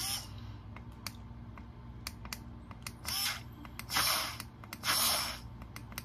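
Small battery-powered portable mini blender running with water inside to rinse it, its motor weak from a low battery. Scattered clicks run through it, with two louder bursts of hiss about four and five seconds in.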